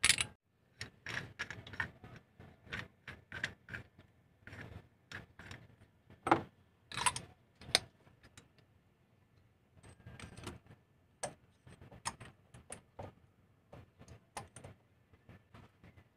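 Scattered sharp metallic clicks and clinks of hand tools working on a stopped engine during a spark-plug change.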